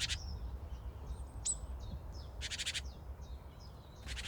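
Songbird singing: short, dry, rapid rattling trills that recur every second or two, with thin high chirps between them, over a low steady rumble.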